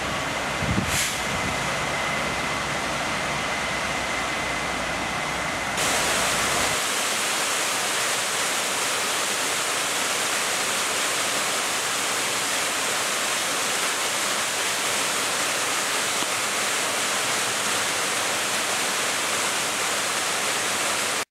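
Rushing water: a river pouring over a low dam and rocky riffles. About six seconds in it gives way to a small waterfall splashing onto rock ledges, a steady hiss that is brighter and has less low rumble.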